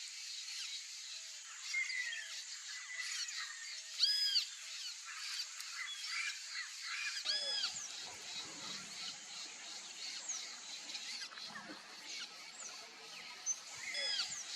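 Birds calling in wooded habitat: many short chirps and calls overlap, and loud arched calls stand out about four seconds in, again around seven and a half seconds, and near the end. A steady high hiss runs beneath them.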